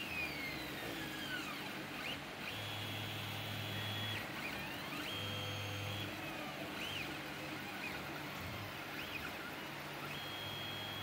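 Stepper motors of a CNC hot-wire foam cutter driving the wire along a letter outline mid-cut. Their high whine rises and falls in pitch as the axes speed up and slow down, and holds steady on straight runs. During those straight runs a low hum comes in as well.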